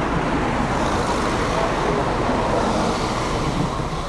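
Backhoe loader's diesel engine running steadily.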